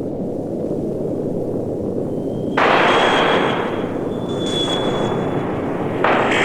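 Science-fiction space-battle sound effect: a steady low rumble, joined about two and a half seconds in by a louder hissing blast with a thin high tone, and by another blast near the end.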